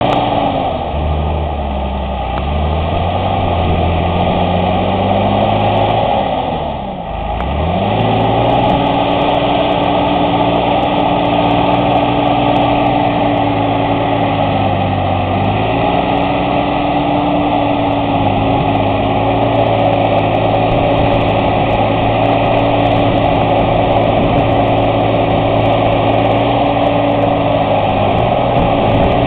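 John Deere 8300 tractor's six-cylinder diesel engine running. Its speed wavers and drops sharply about seven seconds in, recovers within a second, then holds steady.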